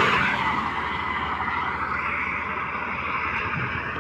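Steady running noise of a motor vehicle's engine, slightly louder at the start and then even.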